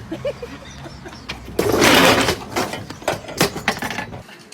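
A loud crashing noise lasting under a second begins about a second and a half in, followed by several sharp knocks.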